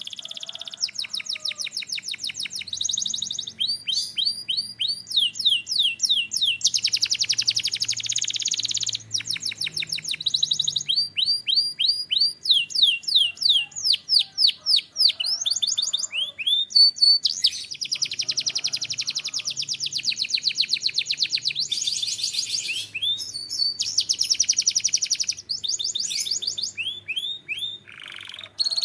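Male canary singing a long, continuous song of high rapid trills, each phrase a fast run of repeated sweeping notes, with buzzy rolls in between and a new phrase every second or two.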